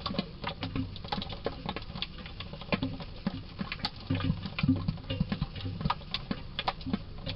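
Bonavita BV1900TS drip coffee maker brewing: a continuous mass of irregular small clicks and soft pops over low thumps.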